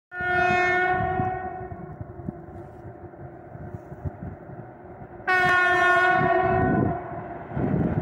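2ES5K "Ermak" electric locomotive horn sounding two long blasts on one steady note. The first lasts about a second and a half and fades out; the second starts about five seconds in and cuts off sharply. A low rumble from the approaching train runs between them.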